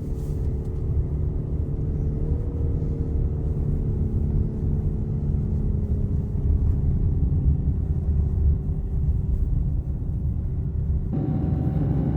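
Vehicle engine running with a steady low rumble and a faint steady hum over it, changing abruptly near the end.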